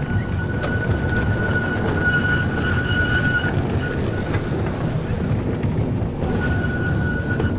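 Great Orme Tramway car running uphill on its rails: a steady rumble, with a high steady squeal for the first three seconds or so and again near the end.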